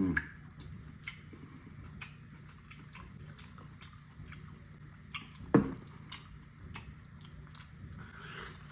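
Close-miked mouth sounds of eating: scattered wet clicks and smacks while chewing, with one louder knock about five and a half seconds in, over a faint steady hum.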